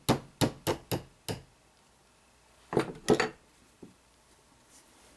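Light hammer taps on a steel punch, knocking an AR-15 hammer pin part way out of the aluminium lower receiver: five quick taps about a third of a second apart, then a short cluster of louder knocks about three seconds in.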